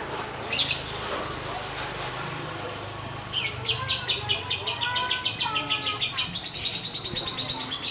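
Lovebird singing a long, rapid run of shrill chattering chirps that starts about three seconds in, after a brief chirp near the start. Voices murmur underneath.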